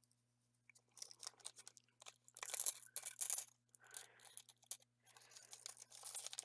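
Small clear plastic bead bags crinkling and rustling in the hands, in irregular crackly bursts that start about a second in.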